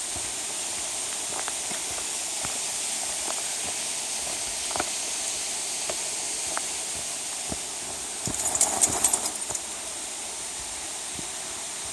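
Footsteps on a rough trail: irregular sharp steps, about one a second, over a steady hiss. A louder burst of scuffling and rustling comes about eight and a half seconds in and lasts about a second.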